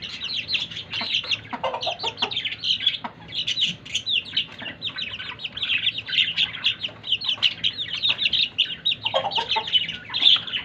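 Baby chicks peeping continuously, many short high-pitched falling cheeps overlapping several times a second. A brief lower call breaks in twice, about two seconds in and near the end.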